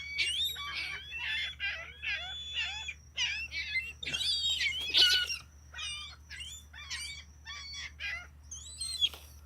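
A flock of gulls calling over one another, with many short, overlapping cries that rise and fall in pitch. The calls are densest for the first six seconds, then come fewer and further apart.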